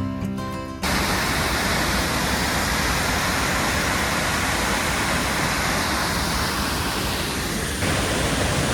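Steady rush of a waterfall: a dense, even roar of falling water. Acoustic guitar music cuts off about a second in.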